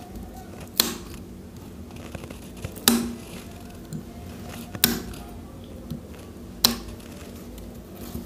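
Side cutters snipping the binding thread on an electric motor's stator winding: four sharp snips about two seconds apart.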